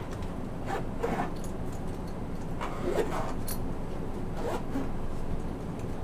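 Several short bouts of rustling and scraping close to the microphone, as a person moves about and handles things, over a steady low hum.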